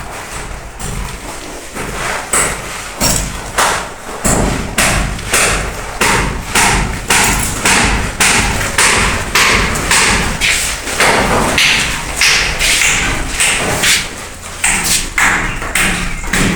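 A long run of regular thuds, about two a second, each with a short gritty tail.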